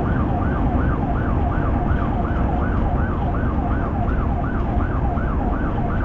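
Police cruiser siren in a fast yelp, rising and falling about three times a second without a break, over steady road and engine rumble at pursuit speed.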